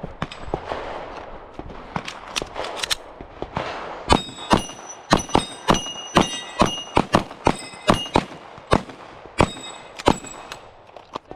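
Rapid gunfire, a few scattered shots and then quick strings of shots from about four seconds in, with hit steel targets ringing between them.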